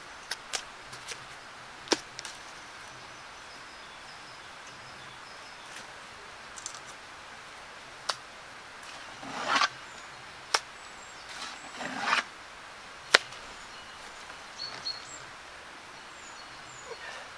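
Flat stones being handled and set on a stone foundation wall: a handful of sharp clicks and knocks of stone on stone, with two longer scraping sounds a little past the middle. A steady outdoor hiss underneath, with faint bird chirps near the end.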